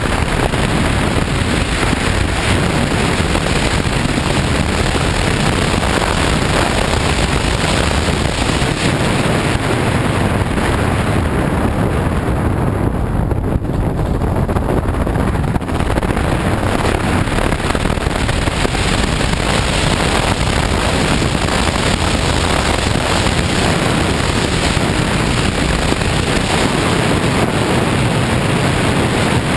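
BMW F 800 GS motorcycle riding along a dirt road: a steady rush of wind over the microphone with the engine and tyres underneath. The high hiss eases briefly about halfway through.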